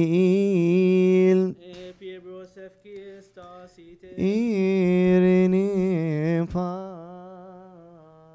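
A male voice chanting Coptic Orthodox liturgical chant, unaccompanied, in long melismatic phrases. The chant breaks off about one and a half seconds in, fainter voices follow, then it resumes around four seconds in and fades away near the end.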